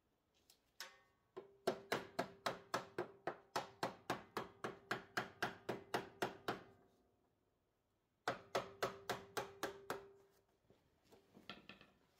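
A soft-face hammer rapping a flat pry bar wedged under an engine valve cover, to break the RTV-sealed cover free. It goes in two quick runs of strikes, about four a second, with the steel bar ringing under each blow, then a few lighter taps near the end.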